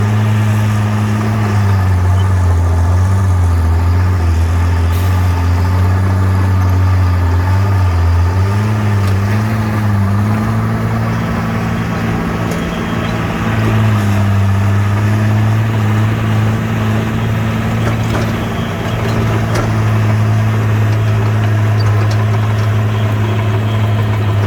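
Heavy-equipment diesel engine, typical of a bulldozer at work, running steadily with a deep hum whose pitch wavers a little as the load changes.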